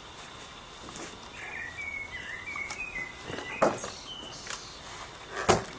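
A bird chirping in short phrases, then a couple of short knocks about three and a half seconds in and near the end as the lawnmower's rear grass box is handled for removal.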